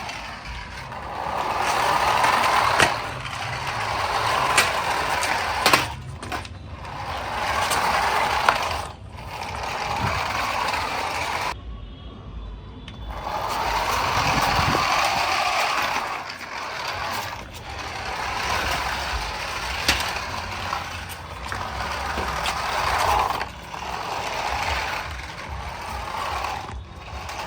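Small electric motor and plastic gears of a toy RC car whirring in repeated spurts of one to two seconds as it is driven, with a few sharp clicks in the first few seconds and a brief pause about twelve seconds in.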